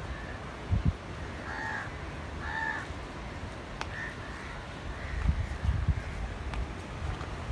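A crow cawing: two clear caws about a second apart, then three fainter calls, over a low rumble with a few dull thumps.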